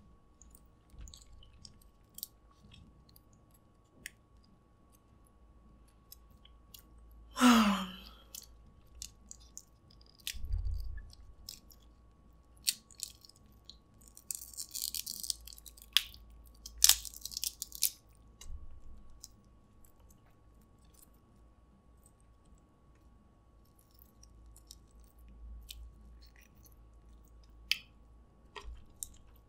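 Close-miked eating of snow crab: chewing and mouth sounds, with scattered sharp clicks and crackles as crab shell is cracked and the meat pulled out by hand. A short vocal sound about seven seconds in is the loudest moment.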